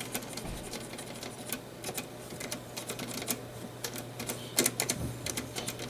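Irregular light clicks and taps of someone working small controls or keys, coming closer together about four and a half seconds in, over a faint steady low hum.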